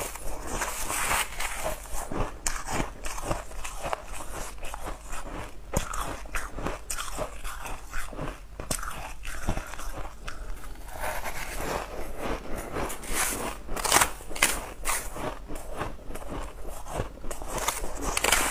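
Shaved ice being crunched and chewed mouthful after mouthful, picked up close by a clip-on microphone: rapid, irregular crisp crunches throughout.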